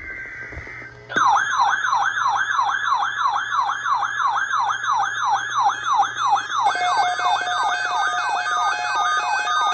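Emergency Alert System broadcast alert. A short burst of SAME digital header tones ends about a second in, and a siren-like electronic attention tone starts, its rising sweeps repeating about four times a second. About two-thirds of the way through, a steady lower tone and stuttering beeps join the sweeping tone.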